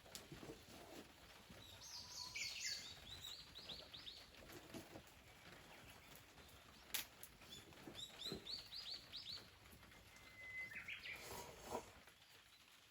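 A songbird singing: three separate phrases of quick, high notes, about two, eight and eleven seconds in, the last starting with a short level whistle. A single sharp click comes about seven seconds in.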